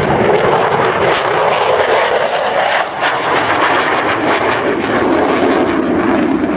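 F-16 fighter jet flying past, its jet engine a loud, steady roar with a ragged crackle, the low end of the roar sinking slowly as it goes by.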